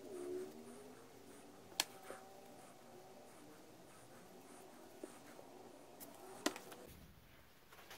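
Steel wool scrubbing a small metal choke plunger: a faint scratchy rubbing with some squeaks, broken by two sharp clicks, about two seconds in and again about six and a half seconds in.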